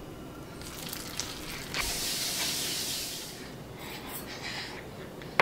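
Spinach pakora batter sizzling as it fries in hot oil: a hiss that starts sharply about two seconds in and fades away over the next few seconds.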